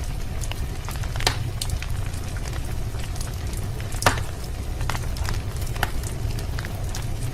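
Wood fire crackling in a fireplace: a steady low rumble under irregular sharp crackles, with two louder pops about a second in and about four seconds in.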